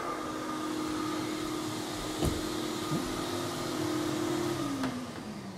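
A carpet-cleaning extractor's vacuum motor running with a steady whine, then switched off near the end, its pitch falling as it winds down. A single light knock about two seconds in.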